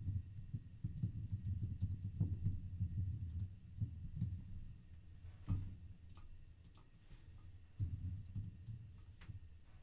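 Computer keyboard being typed on in quick, irregular runs of keystrokes, thinning out after about five seconds.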